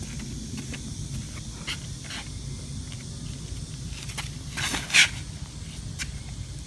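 Disc golf tee shot: soft footsteps scuffing on a sandy concrete tee pad during the run-up, then a short, loud scraping rush about five seconds in as the throw is made.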